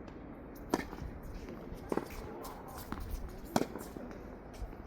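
Tennis balls being struck with rackets and bouncing on the court: sharp pocks about a second apart, the loudest near the middle. A low rumble of wind on the microphone runs underneath.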